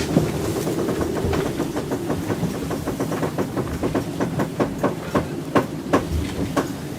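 Rapid, uneven clicking and knocking, a few times a second and louder in the second half, over a steady rush of wind and water aboard a racing yacht in heavy weather.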